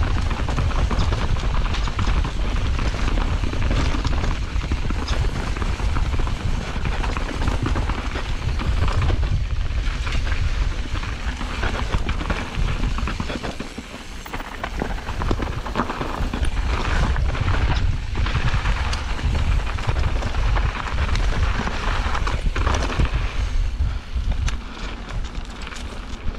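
Mountain bike descending a dirt singletrack at speed: wind buffeting the microphone as a heavy rumble, with the bike clattering over rough ground. The rush eases briefly about halfway through.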